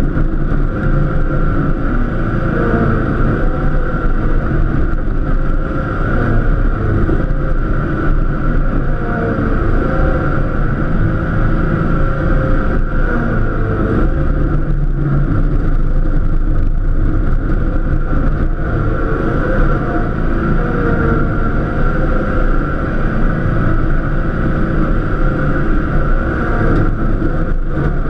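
Cub Cadet LTX1050KW lawn tractor's engine running steadily under load while plowing snow, its pitch wavering slightly.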